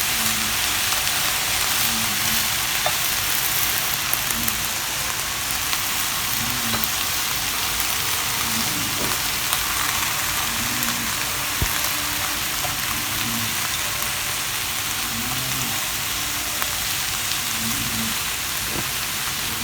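Diced vegetables sautéing in bacon and steak pan juices in a frying pan, sizzling steadily.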